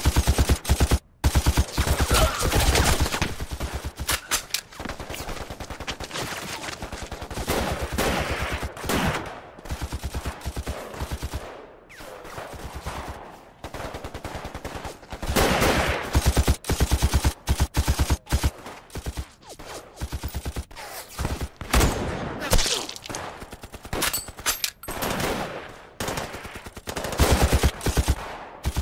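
Film battle sound of heavy gunfire. Rapid machine-gun bursts and rifle shots come in waves, with short lulls between volleys.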